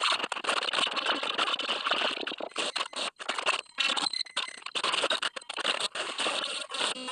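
Black MIDI playback on a synthesized piano: thousands of notes at once blur into a harsh, crackling noise rather than music, choppy and cutting in and out many times over.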